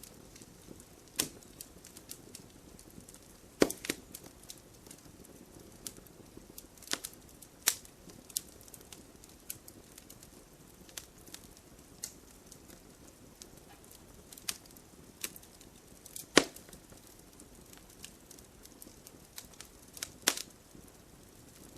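Firewood burning with a low steady hiss and irregular crackles and sharp pops, a few louder snaps standing out, the loudest about four seconds in and again about sixteen seconds in.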